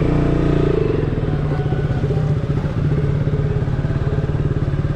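KTM Duke 200's single-cylinder engine running at low revs as the bike pulls away, with a steady, rapid pulsing beat. The revs rise briefly in the first second, then hold steady.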